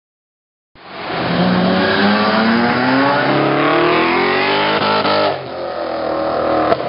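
Drift car's engine revving hard as it slides through a bend, its pitch climbing steadily for several seconds. The sound dips briefly about five seconds in and then picks up again.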